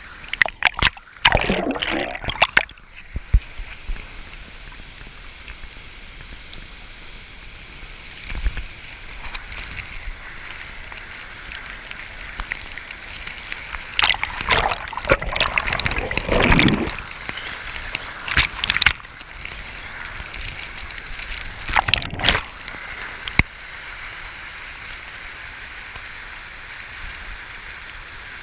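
Waterfall water rushing steadily, with louder bursts of splashing near the start and around the middle, and a few sharp knocks later on.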